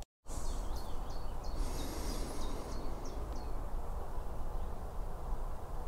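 Wind rumbling on the microphone, with small birds chirping now and then and a short burst of high birdsong about two seconds in.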